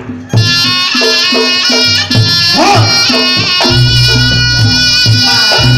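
Reog Ponorogo ensemble music: a shrill double-reed slompret plays a held, bending melody over regular kendang drum strokes and gong-chime percussion.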